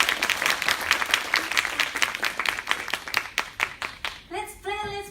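Audience applauding, the claps thinning out near the end as voices begin about four seconds in.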